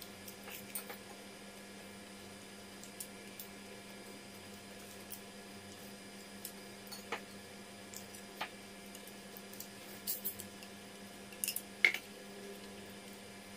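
A person eating fish and rice by hand: soft chewing and lip smacks with scattered small clicks, the sharpest near the end as fingers pick at the fish on a plate. A steady low hum sits underneath throughout.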